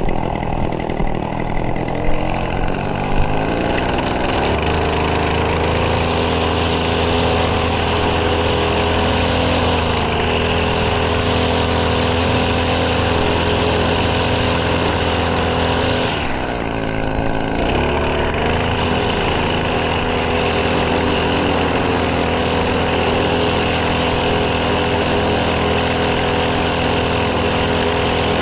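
Small gasoline engine of lawn equipment running. Its pitch climbs over the first few seconds and then holds steady, with a brief drop and recovery about two-thirds of the way through.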